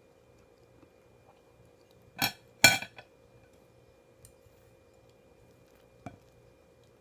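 Tableware clattering during a meal: two sharp clacks about half a second apart a little over two seconds in, then a lighter knock near the end.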